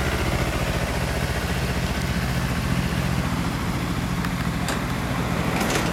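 Sport-bike engines idling steadily, led by a 2006 Kawasaki Ninja 250R parallel twin through an r's gear Wyvern aftermarket muffler, with a 2003 Honda CBR600RR idling alongside. There is no revving.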